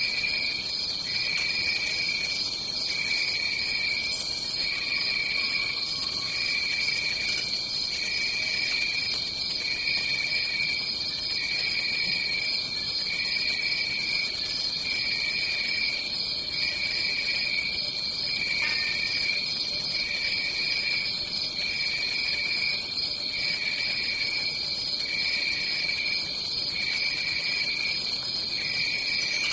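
Tropical rainforest ambience: a dense chorus of calling insects, with one steady high-pitched drone and a lower trill that breaks off and resumes about every second and a half.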